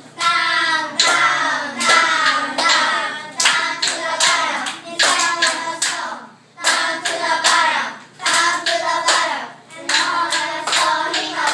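A group of children singing a song together while clapping their hands in time.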